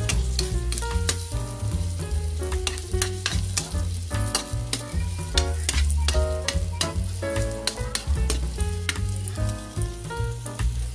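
Pork and sliced onion frying in a metal wok, sizzling, while a metal spatula stirs them, clacking and scraping against the wok many times.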